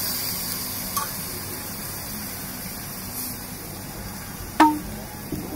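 Slices of meat sizzling on a tabletop yakiniku grill plate, a steady hiss, with two sharp clinks, one about a second in and a louder one near the end.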